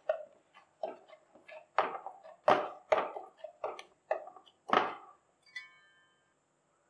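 Hands kneading soft wheat-flour chapati dough in a stainless steel bowl: about ten knocks and presses of the dough against the steel, roughly two a second, stopping about five seconds in. A brief metallic ring follows.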